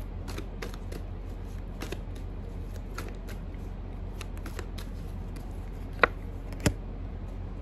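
A tarot deck shuffled by hand: a run of light, quick card clicks, with two sharper snaps near the end, over a steady low hum.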